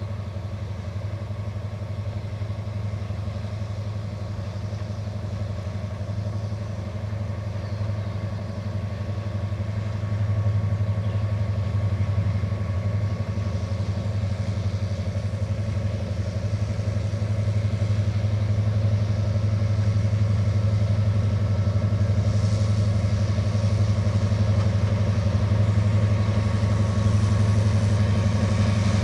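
Diesel locomotive hauling a train of oil tank wagons, its engine running with a steady low drone that grows gradually louder as it approaches.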